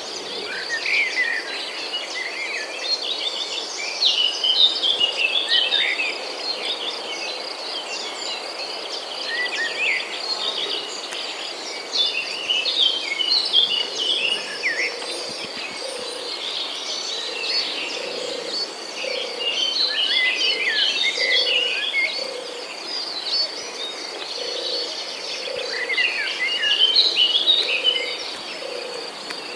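Outdoor countryside ambience: a steady high-pitched insect drone, with bursts of birds chirping and twittering that come and go several times.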